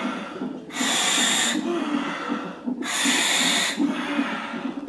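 A woman breathing in twice, about two seconds apart, through a gas-and-air (nitrous oxide) mouthpiece. Each long inhalation draws a loud hiss through the demand valve.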